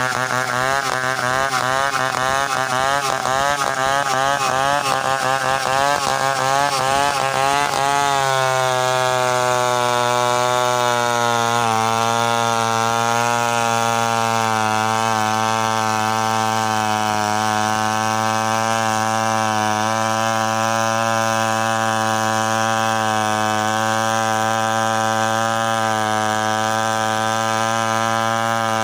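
Stihl 070 two-stroke chainsaw ripping lengthwise through a coconut log, freehand milling. For about the first eight seconds the engine pitch wavers quickly up and down. It then settles a little lower and runs steadily under load as the chain cuts along the log.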